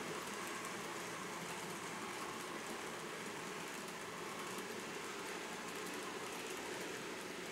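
TOMIX N-gauge model container train, hauled by a DD51 diesel locomotive model, running on the layout track: a steady whir of small wheels rolling on the rails.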